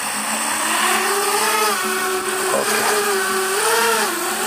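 The four brushless motors of a JJRC P175 175 mm FPV racing quadcopter whine as they spool up for takeoff. The pitch climbs about a second in, then rises and falls several times with the throttle.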